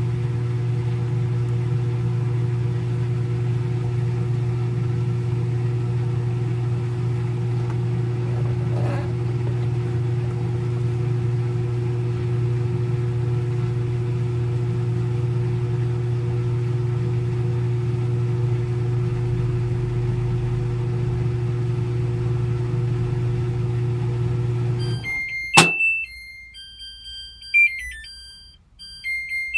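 Front-load washing machine in its spin cycle, running with a steady hum that stops abruptly about 25 seconds in. A sharp click follows, then the machine plays a short electronic tune of stepped beeps, its end-of-cycle signal.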